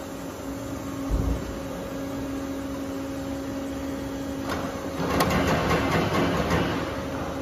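Plate bending roll machine pre-bending a 20 mm steel plate: the machine's motor hums steadily, with a low thump about a second in. From about four and a half seconds the rolls turn and draw the plate through, giving a louder, rough noise full of small clicks until near the end.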